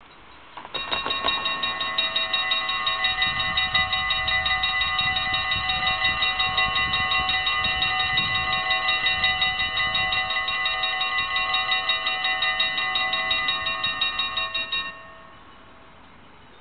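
A Dutch level crossing's mechanical warning bell ringing in rapid, evenly repeated strikes while the barriers come down. It starts just under a second in and stops about fifteen seconds in, once the barriers are fully lowered.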